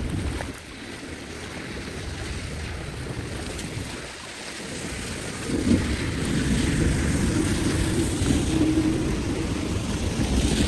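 Rushing floodwater with wind rumbling on the microphone, growing louder about five and a half seconds in.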